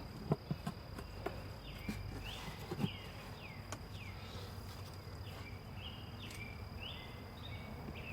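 Honeybees buzzing around an opened hive, with a few light knocks and clicks and some scraping squeaks as wooden hive frames are pried loose and moved.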